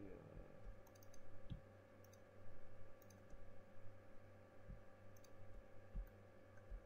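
Faint, scattered clicks of a computer mouse, a handful over several seconds, with a few soft low thumps and a steady faint hum underneath.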